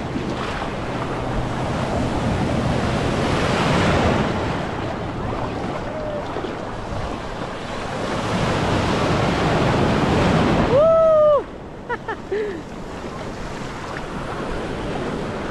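Sea waves surging and washing around a camera held in the surf, swelling up twice, with wind on the microphone. About eleven seconds in comes a short rising-and-falling cry, then the sound suddenly drops and turns duller.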